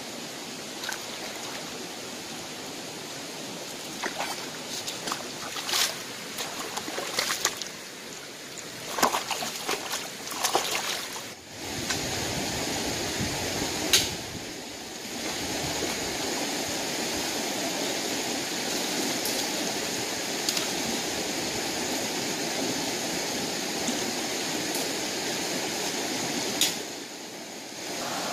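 Shallow rocky stream running steadily over stones, with scattered splashes and sharp knocks in the first half as a fish is washed and handled in the shallows. For most of the second half the rush of water is louder and even.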